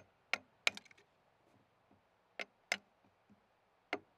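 Hammer blows on a chisel cutting into a log: three quick sharp strikes, a pause, two more, then one more near the end.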